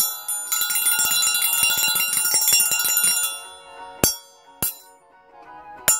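Metal percussion triangle struck with its metal beater, ringing brightly: a couple of single strikes, then a fast roll lasting about three seconds, then three separate strikes, each left to ring.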